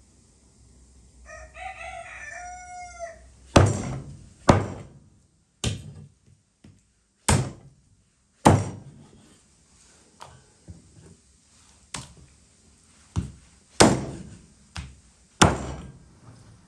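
A rooster crows once, then a meat cleaver chops through raw turkey on a wooden chopping board, a series of sharp blows about one a second.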